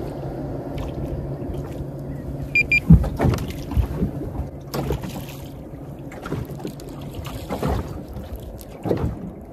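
Knocks and thumps on an aluminium boat's hull and deck as a fish is reeled in and netted, the loudest about three seconds in. Under them runs a steady low hum that fades out near the end.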